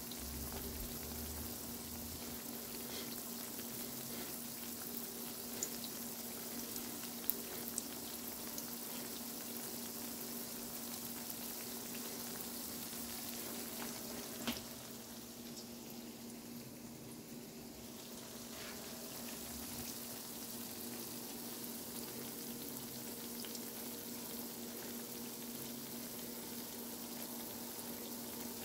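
Flat fish balls and kikiam shallow-frying in oil in a wok: a steady sizzle with a few sharp pops of spattering oil, the loudest about halfway through, over a steady low hum.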